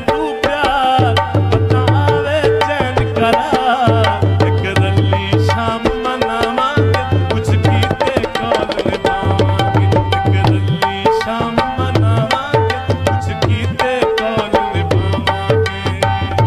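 Instrumental interlude of South Asian folk music: hand drums play a steady rhythm with deep bass strokes under a bending, wavering melody line.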